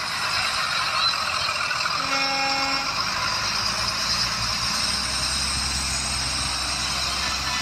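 Yellow school buses driving off on a wet road: engine noise under a steady hiss. The low engine sound grows louder about five seconds in as a bus passes close.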